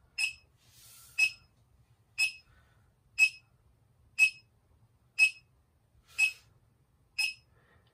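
Short, high electronic beeps from a handheld meter, one a second at a perfectly steady pace, like a meter's alarm beeper.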